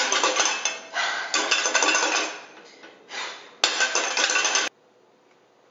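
Metal spoon stirring and clanking against a stainless steel saucepan: a rapid run of clinks and scrapes that pauses about two and a half seconds in, resumes, then cuts off suddenly near the end.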